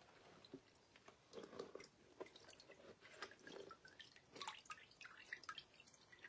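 Faint, irregular drips and small splashes of water running off a wet marbled hat as it is lifted out of a tub of marbling water, starting about a second in.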